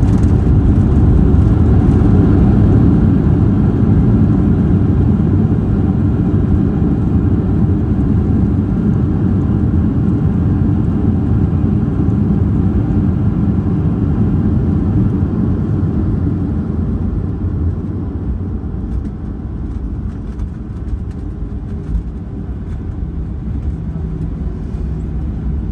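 Boeing 737-800 jet engines and airflow heard from inside the cabin: a loud, steady low rumble with a hiss above it. Both slowly grow quieter through the second half, and the hiss fades about two-thirds of the way in.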